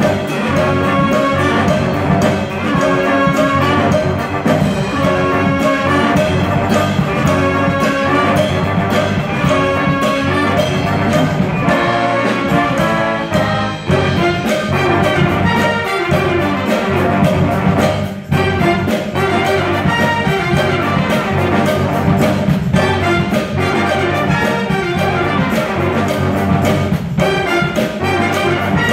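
Student jazz big band playing: saxophones, trombones and trumpets in a repeated ensemble horn riff, with two brief breaks in the middle.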